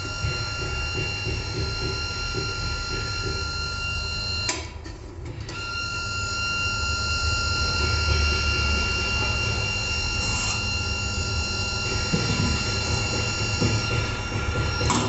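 Crossflow membrane filtration unit's electric pump running with a steady hum and whine. About four and a half seconds in it is switched off, and about a second later it is started again and builds back up to full running.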